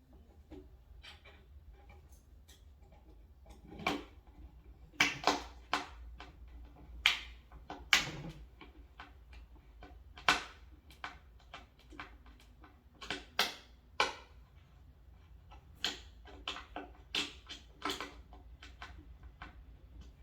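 Irregular sharp clicks and knocks from driving screws by hand into a flat-pack cabinet's panel, with a tool and the wooden parts knocking against each other. They start about four seconds in, several come in quick clusters, and there is no motor sound.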